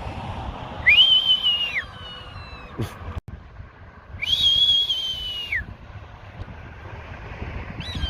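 A whistling exchange between a man and a sparrowhawk: two long level whistles about three seconds apart, each sliding up at the start and dropping away at the end, each followed by a fainter falling whistle. A short sharp knock comes just under three seconds in.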